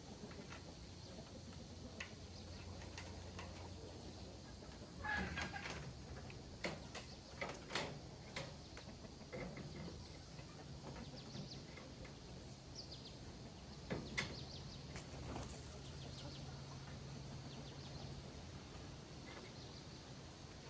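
Chickens clucking faintly, with a few light knocks and clicks in between.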